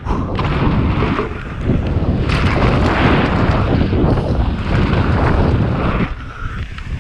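Wind rushing over an action camera's microphone during a fast mountain-bike ride, a loud rumbling noise that eases briefly about a second and a half in and again near the end.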